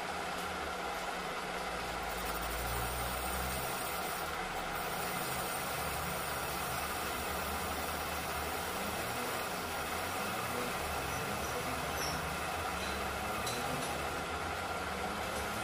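Metal lathe running steadily while its cutting tool machines the combustion dome of a Ninja R motorcycle cylinder head, a constant machine hum.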